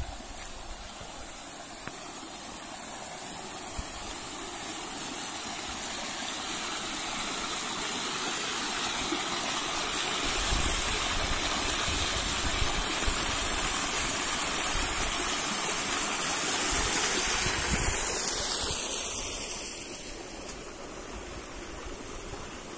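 Waterfall water running, a steady rushing that grows gradually louder over about fifteen seconds and then drops off a few seconds before the end.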